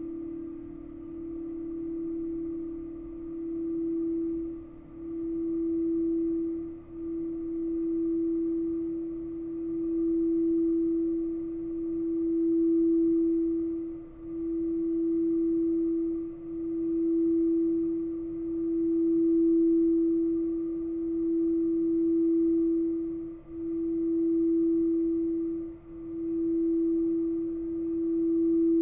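Frosted crystal singing bowl being rimmed with a mallet, sounding one pure steady tone that swells and dips every few seconds. A lower bowl's tone dies away in the first second or two.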